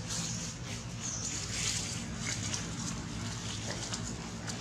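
Short rustles of dry leaf litter as monkeys move about, over a steady low hum and hiss of outdoor background.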